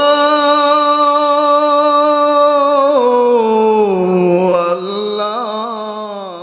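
A singer's voice holding one long note of an unaccompanied Bengali Islamic gojol. About three seconds in the pitch steps down, then wavers in a short ornament before fading out near the end.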